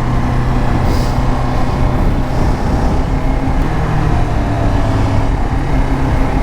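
Kawasaki Ninja 400's parallel-twin engine running at steady, low revs while the motorcycle is ridden, over a steady rushing noise of wind and road.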